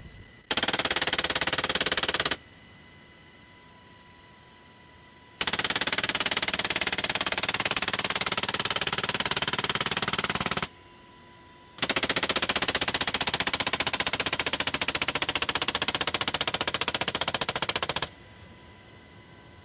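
Browning M2 .50 caliber heavy machine gun firing from a helicopter door mount in three sustained bursts: a short one of about two seconds near the start, then two longer ones of about five and six seconds with a brief pause between them. A faint steady hum fills the gaps between bursts.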